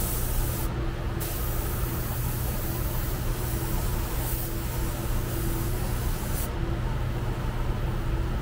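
Compressed air hissing in two bursts, a short one at the start and a long one of about five seconds, as from an air spray tool in a paint shop. A steady low hum runs underneath.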